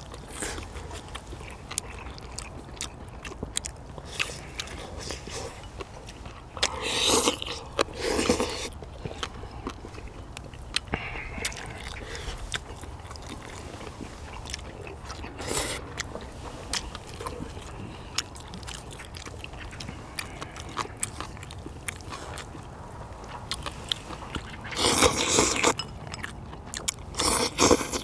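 People eating spicy braised chicken with dried radish greens: close-up chewing and biting with many small wet clicks, and a few louder bursts of mouth noise about a quarter of the way in, around the middle and twice near the end.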